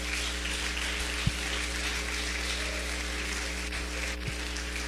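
Steady hiss over a low electrical hum made of several fixed tones, with one soft click a little over a second in.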